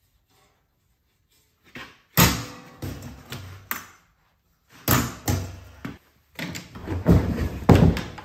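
Metal clanks and knocks from an aluminium dog box: its compartment door and bottom drawer being handled and a long metal piece pulled out. A string of sharp strikes and clatters starts about two seconds in, the loudest at about two seconds, with a denser run near the end.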